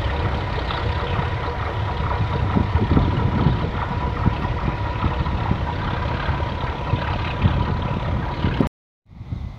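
Diesel-hauled passenger train moving away along the track: the locomotive's engine runs under load with the steady rumble of the wheels on the rails. The sound cuts off abruptly near the end, leaving only wind.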